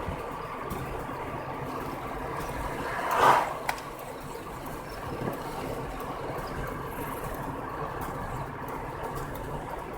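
A vehicle engine idling steadily. A little after three seconds in, a loud whoosh swells and fades quickly, followed by a single sharp click.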